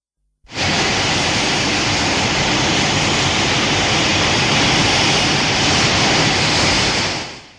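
Sound effect from the Heisei Godzilla films: a loud, steady rushing blast with no pitch that starts abruptly about half a second in and fades out near the end.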